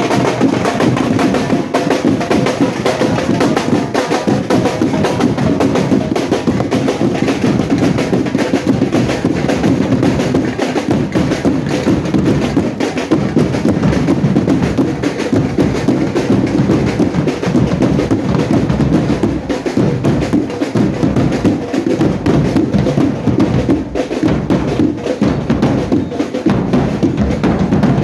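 Carnival band playing with a heavy drum and percussion section: bass drum and other drums keep up a busy beat, with some held melodic notes over it.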